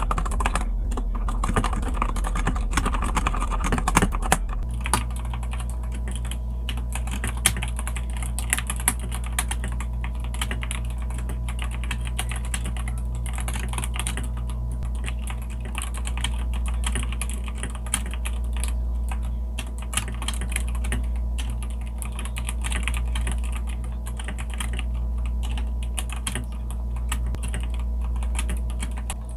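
Typing on a computer keyboard: a steady, uneven run of key clicks over a low, steady hum.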